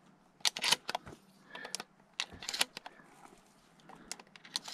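Scattered sharp clicks and light clatter, about half a dozen, of small hard objects being handled.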